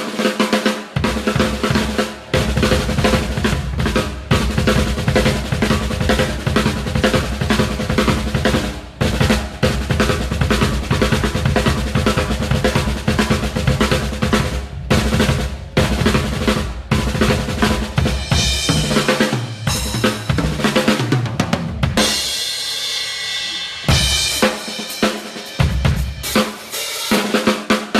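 Crush acoustic drum kit with untaped heads played hard in a sound check: fast, dense strokes on snare, bass drum and toms. Late on, a cymbal crash rings for about two seconds, then a few more scattered hits.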